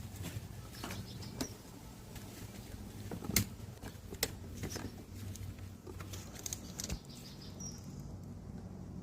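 Handling noise: scattered clicks, taps and light rustling, with a brief faint high squeak near the end.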